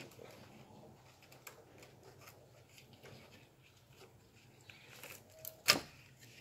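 Hand tools and parts being handled while the ABS unit is removed: scattered light clicks and rubbing, with one sharp click near the end.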